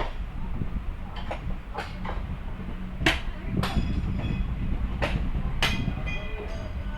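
Hammer striking steel railway track: a series of sharp metallic clangs, each ringing on briefly, several strikes a second or less apart, the loudest about three seconds in. A steady low rumble runs underneath.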